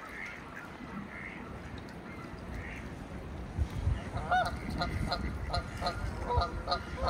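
Canada geese honking: a run of about ten quick honks beginning about halfway in, over a low wind rumble on the microphone.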